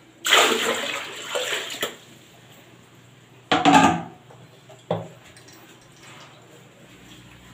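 Water splashing out of a plastic basin into a sink for about a second and a half. A second, shorter burst of splashing and plastic clatter comes about three and a half seconds in, and a single knock about a second later.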